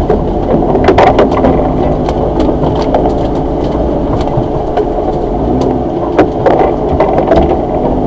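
Suzuki Jimny's engine running steadily as the vehicle pushes through dense brush, heard from inside the cab. Branches and bamboo stalks scrape and knock against the body and windshield in frequent sharp clicks.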